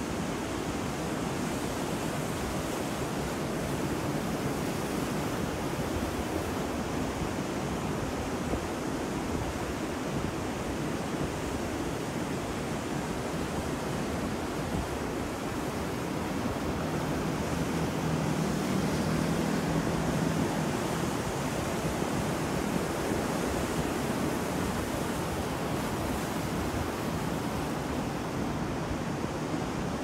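Ocean surf breaking on a beach in a continuous rush of waves, swelling louder for a few seconds a little past the middle.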